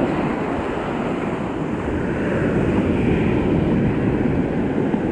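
Steady rushing of breaking surf mixed with wind buffeting the microphone.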